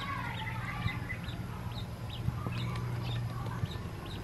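Newly hatched ducklings peeping: a steady stream of short, high, upward-sweeping cheeps, about three a second, over a low steady hum.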